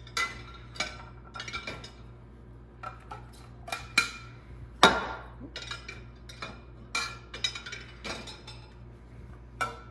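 Plates being set one after another into a dishwasher's bottom rack, clinking against each other and the rack in a string of short clacks, the loudest about five seconds in.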